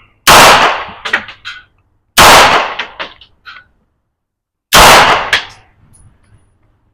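Three shots from a Palmetto State Armory AR-9 9mm PDW fired slowly, about two seconds apart, each very loud and followed by a ringing tail of echoes.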